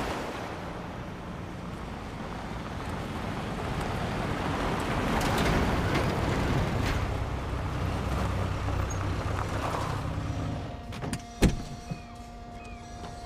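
A car engine running, which falls away about ten seconds in, then a sharp click of a car door being opened near the end.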